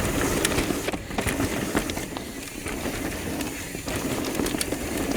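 Pivot Firebird mountain bike riding down a bumpy dirt trail: steady tyre noise on dirt with many scattered clicks and small knocks from the bike rattling over brake bumps.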